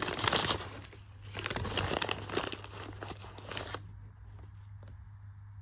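Brown paper bag crinkling and rustling as it is opened and handled, stopping abruptly about four seconds in. A steady low hum continues underneath.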